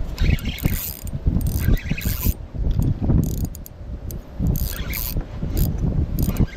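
A fishing reel being cranked in short, irregular spells, its gears and ratchet clicking and whirring, over low rumbling handling noise.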